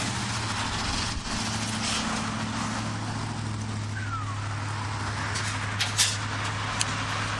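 A heavy engine idling steadily, with a few short sharp clicks or knocks about six seconds in.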